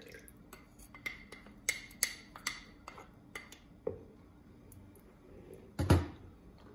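Spoon clinking and scraping against a glass dish as melted margarine is scraped into a mixing bowl: a dozen or so light, ringing clinks over the first four seconds, then one louder knock about six seconds in.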